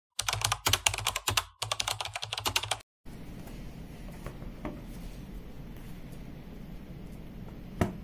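Fast typing on a keyboard, dense rapid key clicks for about three seconds with a short break in the middle, cutting off abruptly. Then soft handling of a tablet keyboard cover, with a few light taps and a sharper click near the end.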